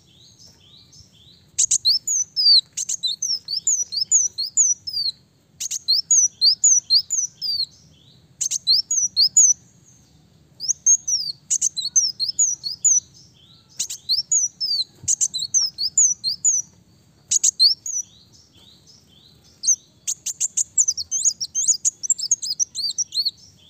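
Male ruby-cheeked sunbird singing: quick runs of high, thin chirps that each slide down in pitch, delivered in phrases of one to two seconds with short pauses between them.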